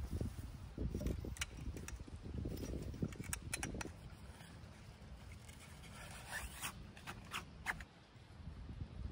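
Tent being packed up: a string of sharp clicks and knocks as the tent pole is handled and stowed, then scraping and rubbing of tent fabric and gear, with wind rumbling on the microphone in the first few seconds.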